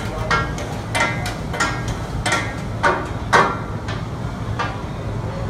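Metal spatulas clanking and scraping on a large round flat-top griddle as food is chopped and turned: irregular ringing metallic strikes about twice a second, the loudest a little past three seconds in, over a steady low rumble.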